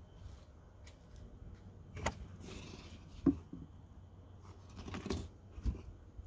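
Knocks and clunks of a white deck hatch lid being lifted open on an aluminum boat, the loudest about three seconds in, with light handling and rustling around it.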